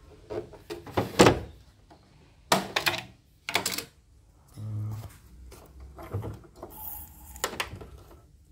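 Plastic clicks, knocks and scrapes from handling an embroidery machine's clear bobbin cover and the parts around its needle plate as the bobbin area is opened. The loudest knocks come about a second in and again between two and a half and four seconds in.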